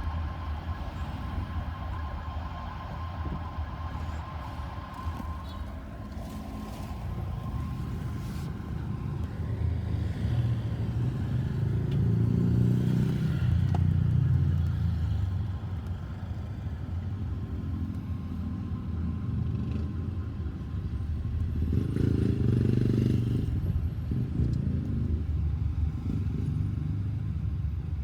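Road traffic: car and motorcycle engines running in a steady low rumble. It swells louder as vehicles pass, about halfway through and again near the end.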